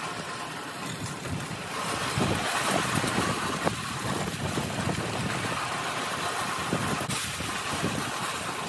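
A steel-mesh utility wagon rolling and rattling over asphalt while towed behind a power wheelchair, a continuous rumble with irregular small clanks.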